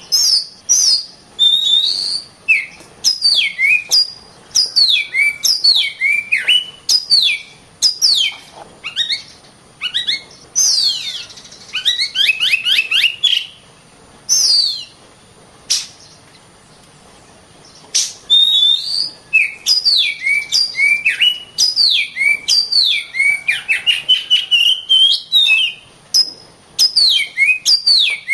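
Oriental magpie-robin (kacer) singing: a fast run of loud whistled notes, many sliding downward, broken by a pause of about two seconds past halfway.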